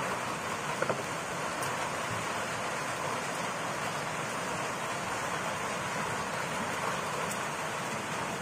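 Steady rain, an even hiss with no rhythm or change.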